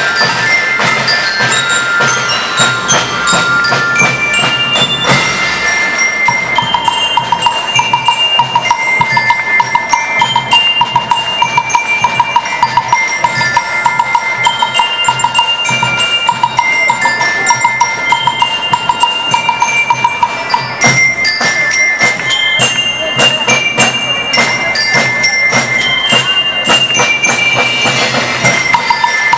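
School rhythm band playing: bell lyres ring out a melody of short high notes over snare and bass drums and a drum kit with cymbals. A steady pulsing high tone runs through the middle stretch.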